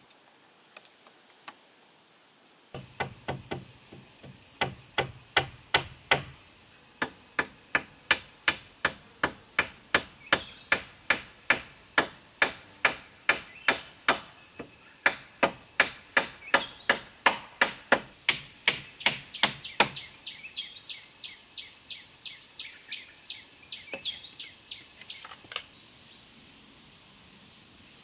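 Steady hammering on the cabin's wooden frame poles, about three sharp blows a second, then fainter and more irregular knocks before stopping.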